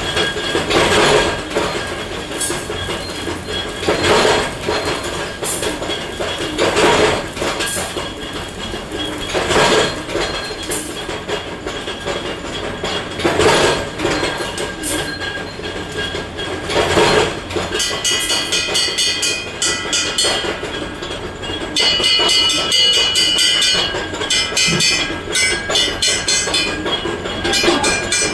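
Factory machinery running, with loud hissing surges about every three seconds. Later it changes to a fast, continuous metallic clattering with ringing tones.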